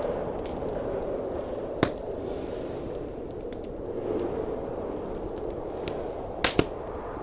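Wood fire crackling in a fireplace, with a loud pop about two seconds in and two more close together near the end, over a steady rushing of blizzard wind.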